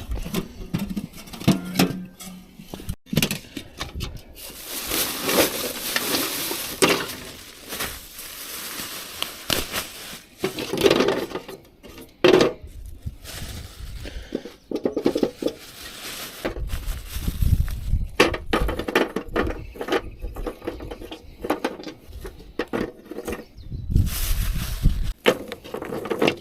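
Knocks, clinks and rattles of metal camp cooking gear being handled and set down, with irregular scraping between them.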